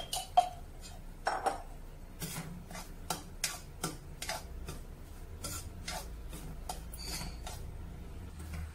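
A steel spoon stirring semolina being roasted in ghee in a steel kadai: irregular scraping and light clinking of metal on metal, several strokes a second, with louder clinks near the start.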